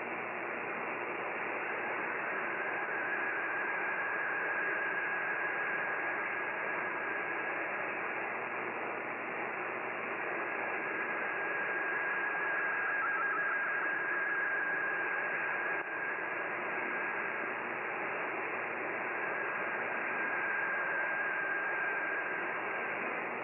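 Shortwave AM receiver audio on weak reception: a steady hiss of band noise and static, with a faint thin whistle near the middle of the band. The whistle is the MFSK32 digital picture signal of VOA Radiogram being decoded.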